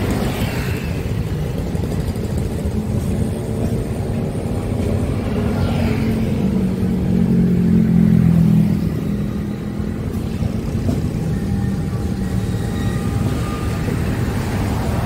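Motorcycles and cars passing on a road beside a slowly rolling freight train of tank wagons, with the low engine of a CC201 diesel-electric locomotive drawing near toward the end. A motorcycle passing close is the loudest sound, about seven to eight seconds in.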